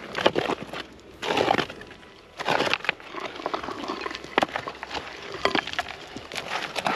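Small hand digging tool scraping and prying into dry, stony soil, with irregular scrapes, stones clinking and dirt crumbling, and a few longer, louder scraping strokes in the first half.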